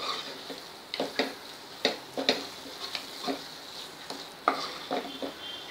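Wooden spatula stirring and scraping a thick green masala paste as it fries in oil in a black kadhai: irregular scrapes and knocks, a dozen or so, over a soft steady sizzle.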